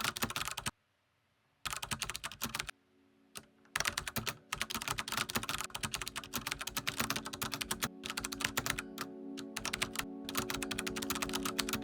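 Fast typing on a keyboard, in bursts of rapid key clicks with two short pauses. Soft ambient music with long held notes fades in underneath from a few seconds in.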